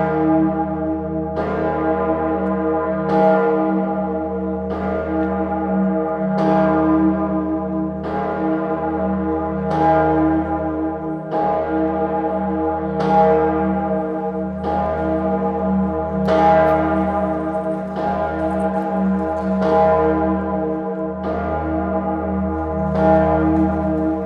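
The Salvator bell, a great church bell tuned to E-flat and cast by Oberascher in 1961, swinging on its own. Its clapper strikes evenly, about once every 1.7 seconds, and a deep hum rings on between strokes.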